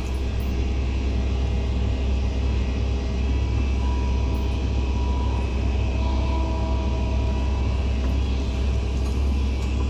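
Excavator's diesel engine running with a steady deep rumble, with a faint whine coming and going over it.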